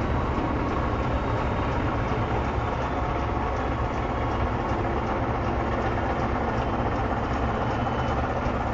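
A large tractor's diesel engine running steadily under load as its wheels roll over the wholecrop silage clamp, compacting it.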